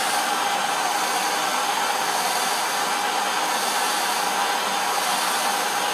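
Gas torch flame hissing steadily as it heats the underside of a fluxed stainless steel plate.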